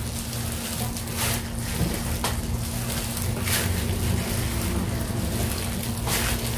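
Hands in thin plastic gloves kneading crumbly dough in a stainless steel bowl: a steady rustling, crinkling hiss of the gloves and dough, with a few brief scrapes, over a low steady hum.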